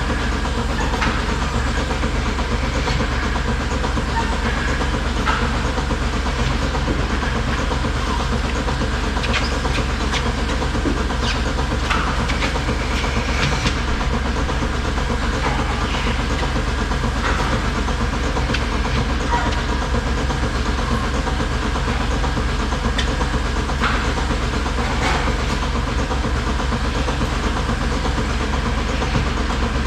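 Dairy milking parlor equipment running steadily: a continuous low hum from the milking system, a faint steady higher tone, and scattered short clicks and clanks.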